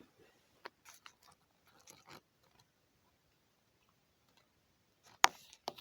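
A crow eating from the hand: scattered small clicks and crunches of its beak on the food, then a sharp, louder beak click about five seconds in and another just after.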